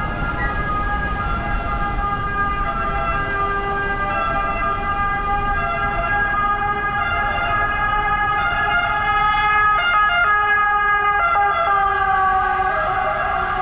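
Emergency vehicle siren sounding steadily over street traffic noise, its pitch sliding down a little near the end.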